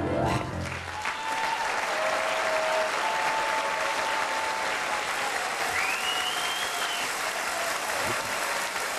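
Large audience applauding, with a few whistles rising above the clapping. The piano accompaniment's last chord fades out about a second in.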